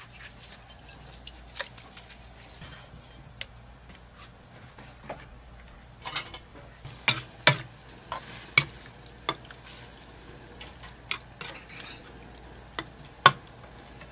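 Silicone spatula stirring a red-sauced stir-fry frying in a small metal pan on a gas burner: scattered clicks and knocks of the spatula against the pan, coming thickest about six to nine seconds in, over a faint sizzle.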